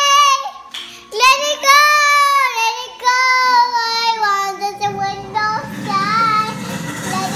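A young girl singing long, high held notes without clear words, her pitch sliding down at the ends of phrases. From about five seconds in a low rustling noise sits under the singing.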